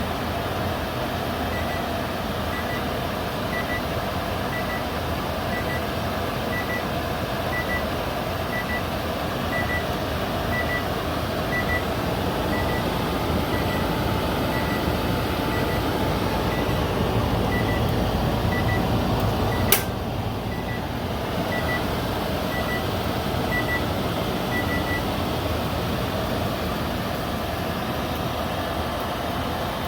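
A GE microwave oven's end-of-cycle alert: high electronic double beeps, about one pair a second, for over twenty seconds, stopping a few seconds before the end. Underneath runs a steady whirring hum, and a single sharp click comes about two-thirds of the way through, after which the hiss eases.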